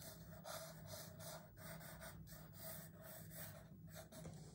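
Faint scratching of a pencil on drawing paper, a run of quick, repeated short strokes over a low steady hum.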